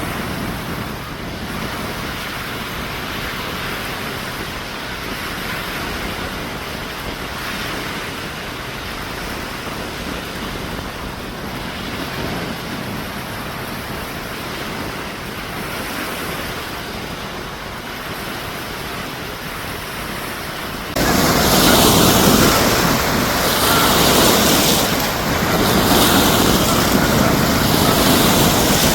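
Wind-driven lake waves washing and breaking on the shore, almost ocean-like, with steady wind. About three quarters of the way through the sound jumps suddenly louder and brighter.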